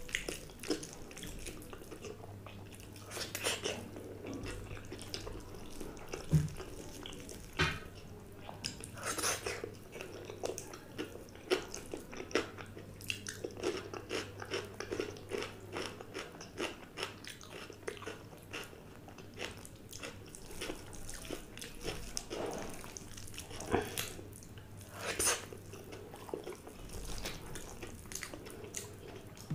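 Close-miked chewing and wet mouth smacks from eating pakhala bhaat (water-soaked rice) mixed by hand, with scattered sharp clicks and occasional crunches.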